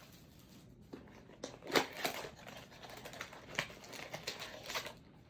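Trading-card packaging being opened and handled: a card box and pack wrapper crinkling, with scattered light clicks and rustles, the loudest a little under two seconds in.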